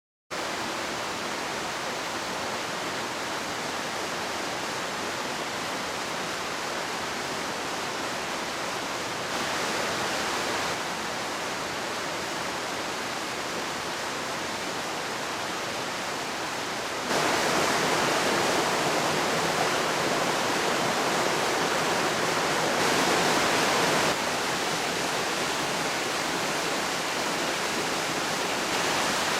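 Mountain stream running over stones, a steady rush of water that starts suddenly and becomes louder a few times, most of all from about halfway through.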